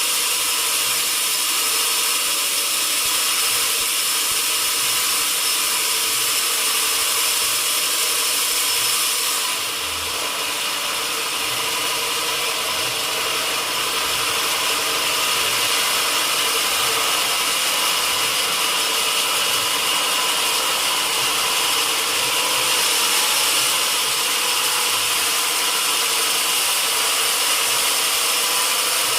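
Sawmill saw running steadily on mahogany wood: a continuous high whine and hiss, with a brief dip in level about ten seconds in.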